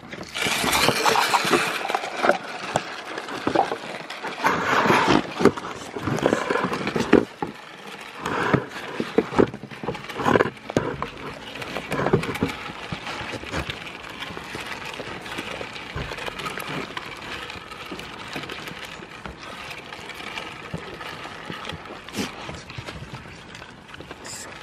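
Goats eating small green feed pieces off a board right at the microphone: crunching and chewing, with knocks of muzzles and hooves on the board. The knocks come thickest and loudest in the first half, then settle into steadier chewing.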